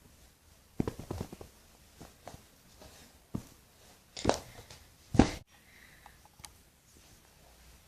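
Hands squeezing and handling dolls close to the microphone: scattered soft knocks and rustles, with a cluster of knocks about a second in and two louder handling noises about four and five seconds in.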